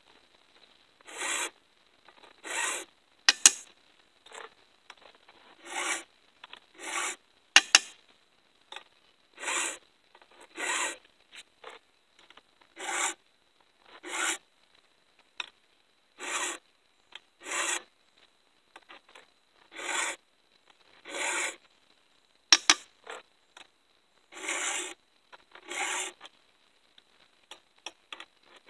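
Round chainsaw file in an Oregon file guide rasping across the cutters of a 3/8 full-comp ripping chain: two pushed strokes per cutter, then a pause while the chain is rotated to the next cutter. Now and then a few sharp taps, the loudest sounds.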